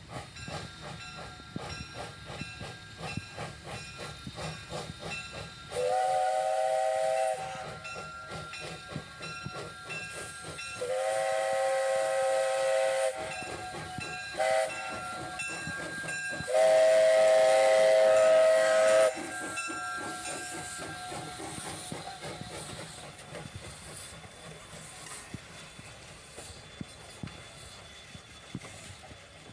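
Steam locomotive working past with a steady rhythm of exhaust chuffs and hiss, its chime whistle sounding long, long, short, long: the grade-crossing signal. Each whistle blast slides up in pitch as it opens, and the chuffing fades away near the end.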